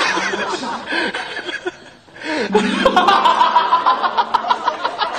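Several men laughing, chuckling and snickering in bursts. A steady low tone comes in under the laughter about halfway through.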